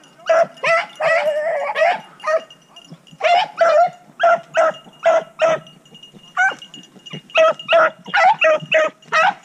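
Rabbit hounds barking and baying in a quick run of short, pitched yelps, two or three a second, as they run a cottontail's trail.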